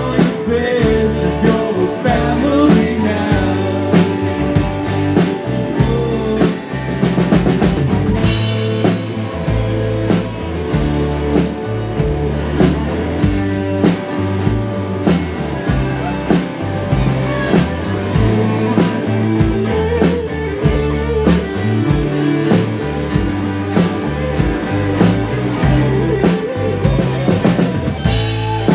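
Live band playing a song: a drum kit keeping a steady beat under acoustic guitar, electric guitar and bass, with a sung lead vocal at times.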